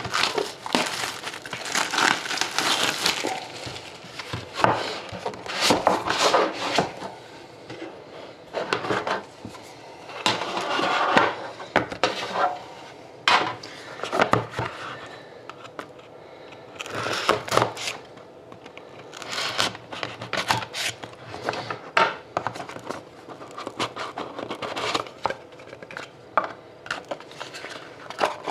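A trading-card hobby box and its packaging being opened and handled: irregular scraping and rustling of cardboard and wrapping, broken by many sharp clicks and knocks.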